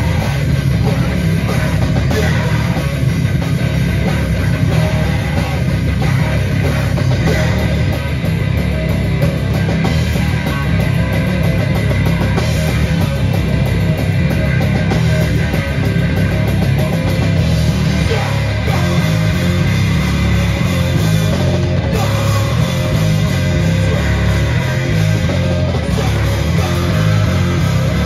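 A live heavy metal band playing loud through amps: distorted electric guitars and bass over a pounding drum kit, with no breaks.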